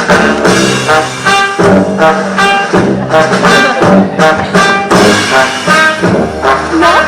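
Jazzy brass-band music with trombone, trumpet and saxophone over a steady beat, in a vaudeville cabaret style.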